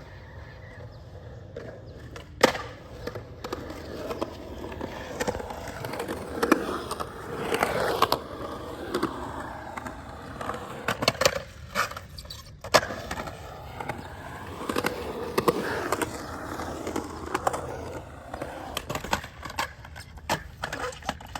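Skateboard wheels rolling, with several sharp clacks of the board striking the ground; the loudest clack comes a couple of seconds in.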